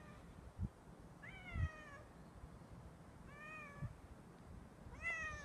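A cat meowing three times, short calls that bend in pitch, with a few soft low thuds in between.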